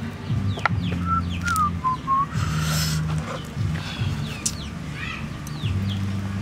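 Birds chirping in many short falling notes over low, steady background music notes. A brief rustling noise comes about two and a half seconds in.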